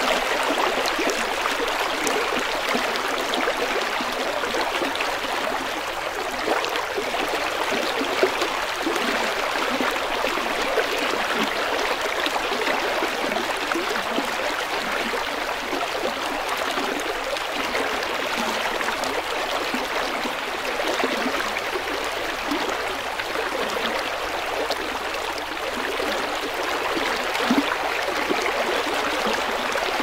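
Waterfall's rushing water: a steady, even splashing hiss with no pauses or changes.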